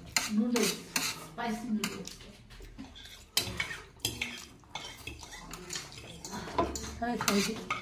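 Metal chopsticks clicking and scraping against a metal baking tray as noodles are picked up, with many quick irregular clicks, mixed with utensil clinks against a bowl.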